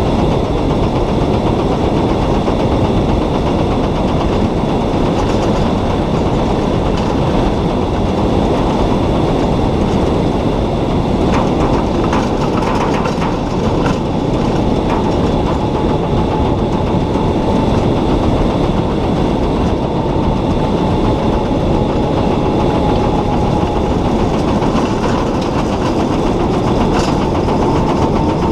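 Solar race car driving on asphalt, heard from inside its cockpit: a steady loud rumble of tyre and road noise, body rattle and wind, with a few sharp rattles and a faint steady whine that comes in about halfway through.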